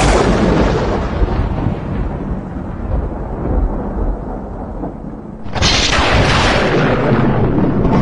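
Thunder: the loud rumble of a clap that broke just before, slowly dying away over about five seconds, then a second sharp crack about five and a half seconds in that rolls on as a deep rumble.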